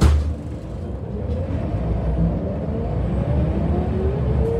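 Scania L94UB bus accelerating, heard from inside the cabin: a sharp thump at the very start, then a low rumble with a thin whine rising in pitch. The whine drops back and climbs again about three seconds in, as the automatic gearbox shifts up.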